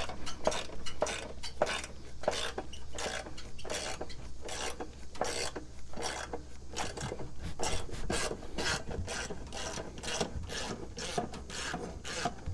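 Ratchet wrench clicking as its 9/16 socket backs off a riding mower's blade nut, a steady run of short repeated ratcheting strokes.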